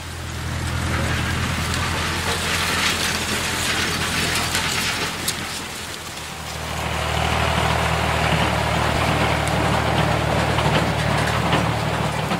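A telehandler's engine running steadily under a loud, even hiss, which dips briefly about halfway through and then comes back.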